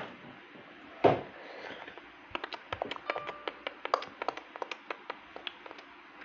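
A single thump about a second in, followed by a quick, irregular run of light clicks and taps.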